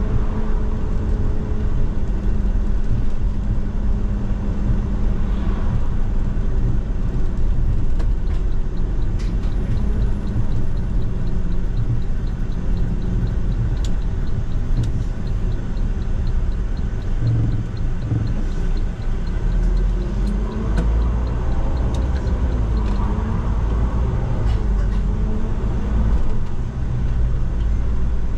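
Inside a city bus on the move: its Iveco F1CFA401A three-litre CNG engine running under a heavy rumble of road and air noise from a ventilation opening. The engine note falls about a second in and rises and falls again later on. A faint regular ticking runs through the middle part.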